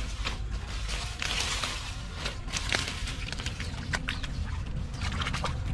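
Water hyacinth and weeds rustling and crackling as hands push through them and reach into the mud beneath, in a string of irregular snaps.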